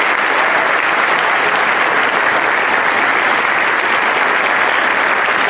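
Large audience applauding steadily, a dense, even clapping from a crowded hall.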